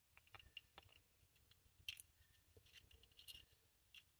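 Faint, scattered small clicks and light rubbing from fingers handling a partly disassembled flashlight's housing, with one slightly louder click about two seconds in.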